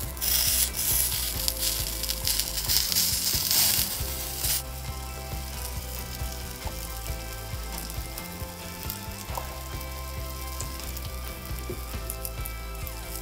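Chicken pieces frying in a miniature wok, sizzling loudly for the first four and a half seconds and then more quietly. Light clicks of chopsticks against the pan come through the sizzle.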